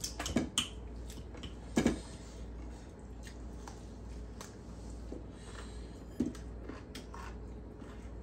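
Eating at the table: fingers squishing and mixing rice and curry on plates, chewing, and scattered sharp clicks and knocks of a plastic spoon and dishes, the loudest a few near the start, one about two seconds in and one about six seconds in.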